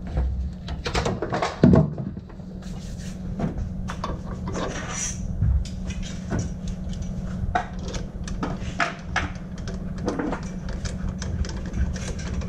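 Irregular clicks, taps and knocks of metal parts being handled and fitted onto a two-stroke motorcycle engine on a workbench, over a steady low hum.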